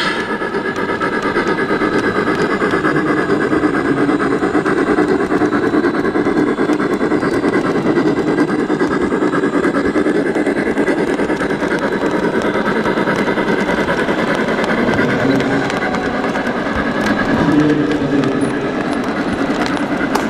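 Model steam locomotive and its cars running along model railroad track: a steady rumble of wheels and motor.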